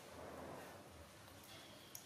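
Near silence: faint room tone, with one brief small click near the end.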